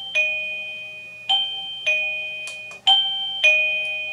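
Wireless doorbell chime sounding a two-note ding-dong, a higher note followed by a lower one, three times over at about one-and-a-half-second intervals, each note struck sharply and fading away.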